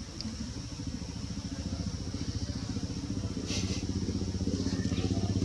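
An engine running steadily with a fast, even pulse, growing gradually louder, over a thin steady high-pitched drone.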